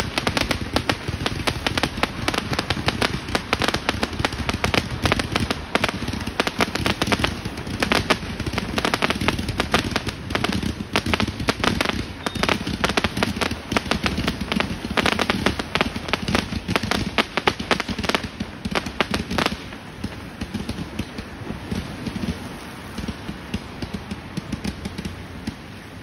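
Fireworks going off at close range: a dense, rapid barrage of bangs and crackles from shots fired up from ground level. About three-quarters of the way through the barrage thins out to scattered pops as the display dies down.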